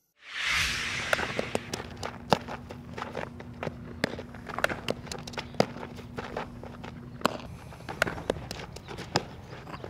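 A softball infielder's cleats stepping and scuffing on the infield dirt, with irregular sharp knocks and clicks, while she fields and throws. It opens with a brief burst of rushing noise, and a faint steady hum stops about seven seconds in.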